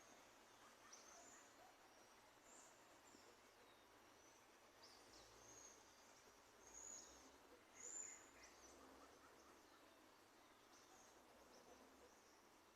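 Small birds chirping faintly: scattered short, high calls over a quiet background hiss, the two loudest about seven and eight seconds in.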